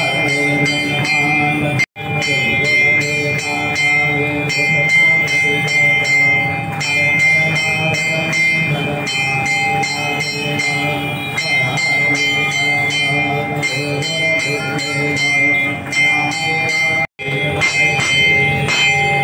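Hindu temple bells ringing continuously during an aarti, with a steady rhythmic metallic beat over them. The sound cuts out for an instant twice, about two seconds in and near the end.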